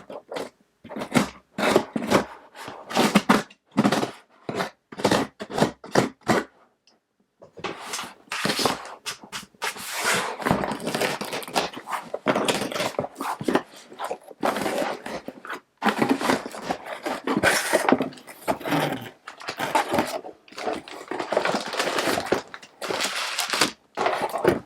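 A shipping box being opened by hand: a quick run of short scraping strokes, then, after a brief pause, a long stretch of rustling and crinkling as the packaging inside is pulled open and handled.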